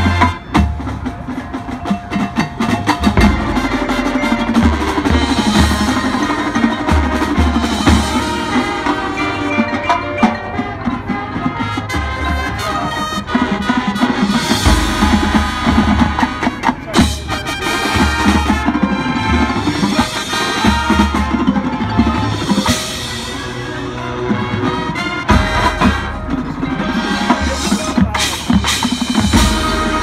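High school marching band playing its field show: sustained pitched wind parts over drums, with marimba and xylophone from the front ensemble and repeated deep bass hits.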